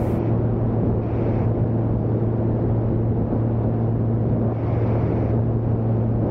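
Steady low drone of a Van's RV light aircraft's piston engine and propeller in level cruise flight, holding an even pitch throughout.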